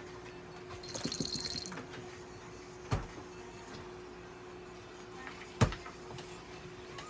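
Two sharp knocks, the second louder, over a steady low hum, with a short rattle about a second in.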